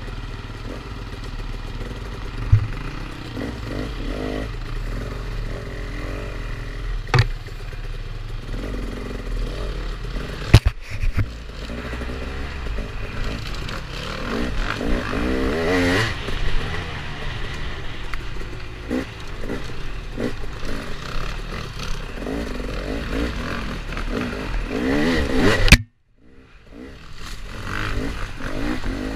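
Dirt bike engines revving up and down as the bikes are ridden along a rough wooded trail, broken by several sharp knocks. The sound cuts out for a moment near the end.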